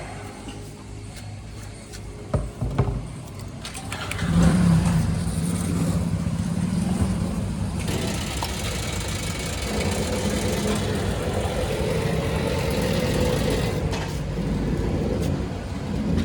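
A JCB backhoe loader's diesel engine running low with a few knocks, then revving up sharply about four seconds in and holding at a higher, steady speed.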